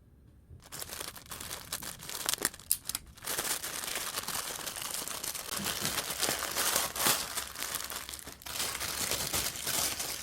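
Plastic packaging bags crinkling and rustling as they are handled and rummaged through. The sound starts under a second in and goes on in a dense crackle, with two short lulls.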